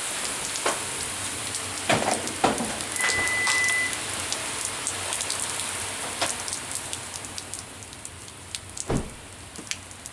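Hail pelting a paved street: a dense hiss of falling pellets with many sharp ticks from single stones striking, growing quieter over the last few seconds.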